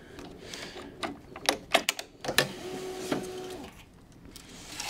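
Nylon tennis string being woven by hand through the main strings of a racquet on a stringing machine: scattered clicks and rubbing as the string is pulled and handled, with a short steady hum lasting about a second midway.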